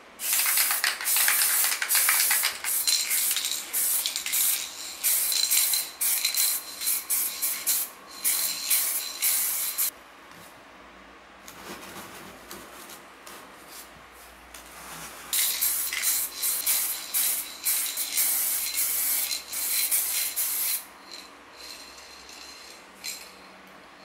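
Aerosol spray paint can spraying white paint in many short hissing bursts, with a faint thin whistle from the nozzle. There are two runs of bursts separated by a pause of a few seconds, and a last short burst near the end.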